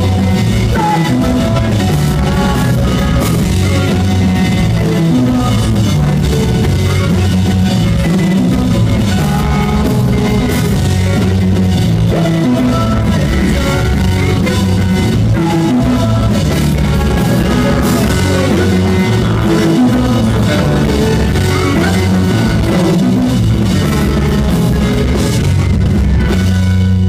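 Live math rock band playing: electric guitar, bass guitar and drum kit in a busy passage of quick, shifting notes.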